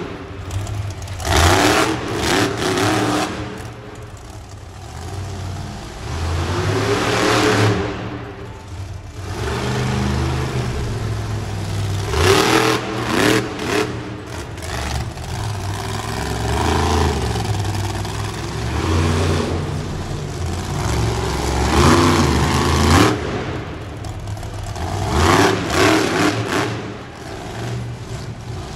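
Monster truck engine revving hard in repeated surges, its pitch rising and falling with each blip of the throttle, as the truck drives over a row of crushed cars.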